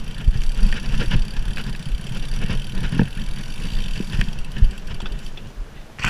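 Gravel bike rattling and knocking over rough, overgrown singletrack, picked up by a camera mounted on the handlebars: a low rumble with irregular jolts and clatter.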